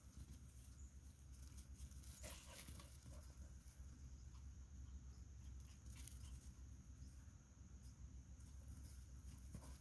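Near silence: faint outdoor background with a steady low hum and a few soft clicks about two seconds in and again about six seconds in.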